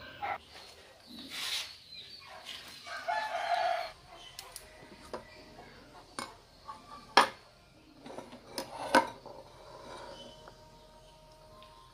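A rooster crows during the first few seconds. Then come a few sharp clinks of steel and ceramic tableware being set down on a table, the loudest about seven seconds in.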